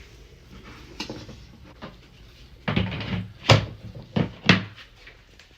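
A series of about six knocks and clunks, irregularly spaced, the loudest near the middle.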